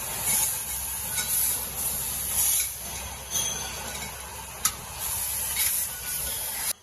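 Tube laser cutting machine at work on metal tube: a steady hiss with scattered sharp ticks, which stops abruptly near the end.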